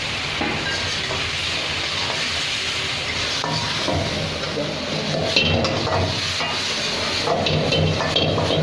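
Sauce sizzling in a hot pan as fried chicken pieces are stirred into it, with metal spoon scrapes and clinks against the pan, more of them in the second half.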